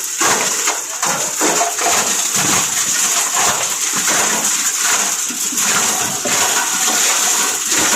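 Plastic scrap grinder running under load, its rotor blades chopping plastic pieces fed in one at a time: a steady high hiss with a dense, continuous clatter of cracks.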